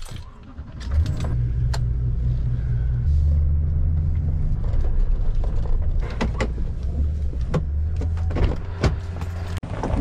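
A motor vehicle's engine running at low revs, a steady low hum whose pitch shifts a couple of times, with scattered clicks and knocks over it.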